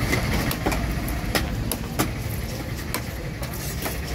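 Heavy cleaver chopping through a large trevally (kannadi parai) into steaks, knocking sharply onto a wooden chopping block about eight times at an uneven pace. A steady low rumble runs underneath.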